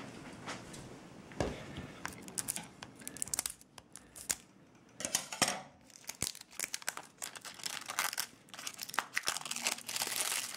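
Clear plastic wrap on a small cardboard box crinkling and tearing as fingers pull it off, in irregular crackly rustles.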